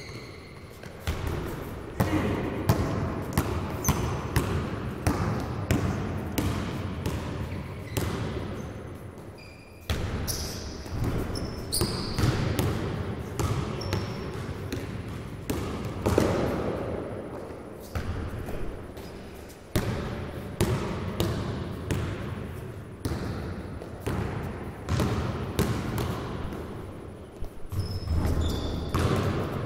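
Basketballs bouncing on a gym floor during play: irregular thuds, several a second at times, echoing in a large hall, with short high squeaks now and then.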